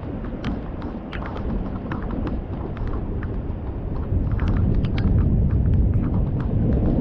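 Thunder rumbling through a rainstorm, swelling louder about four seconds in, with scattered sharp ticks of raindrops striking close by.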